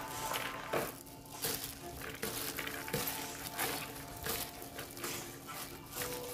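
A plastic-gloved hand tossing chopped chives, radish, carrot and onion in a plastic mixing bowl: irregular rustling and crinkling, with soft background music underneath.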